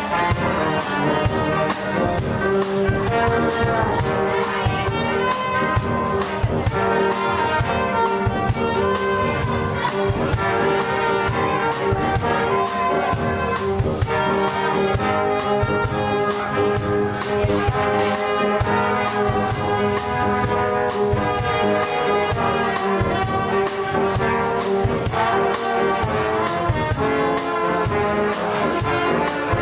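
Instrumental music with horns over a steady, driving beat, played by street performers.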